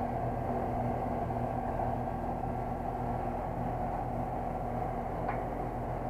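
Carrier Infinity 4-ton heat pump's outdoor unit running with a steady machine hum and low electrical drone, with a faint tick about five seconds in.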